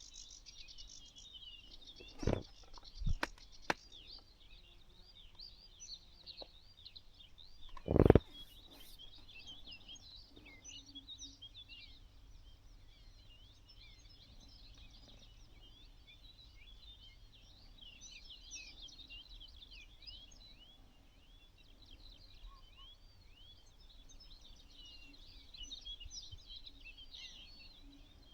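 A dense chorus of many small birds chirping and twittering without pause. A few short knocks come about two to four seconds in, and a louder thump about eight seconds in.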